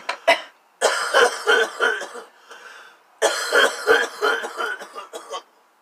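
A man coughing hard: a couple of short coughs at the start, then two long fits of rapid, rough coughs. He is getting over a cold.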